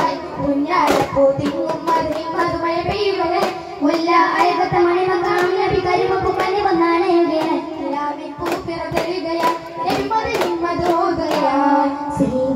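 Boys singing a Daff Muttu song, with hand-held frame drums (daf) beaten along with it, the drum strikes sharp and frequent over the continuous sung melody.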